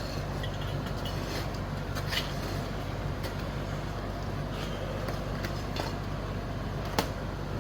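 A steady low hum with scattered light clicks and scrapes of hands working on a scooter wheel and tyre.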